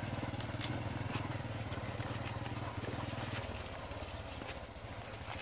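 A motorbike engine running at low revs, fading about three and a half seconds in, with scattered footsteps on the dirt path.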